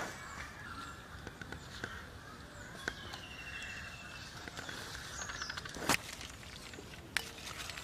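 Birds chirping in the open air, one giving a short trill about three seconds in, while a bamboo fish trap is handled and tipped over a clay bowl, with a sharp knock about six seconds in and a smaller one near the end.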